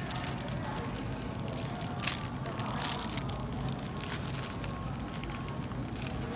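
Warehouse-store background noise: a steady hum with distant shoppers' voices, overlaid with crackling rustles and a sharper click about two seconds in.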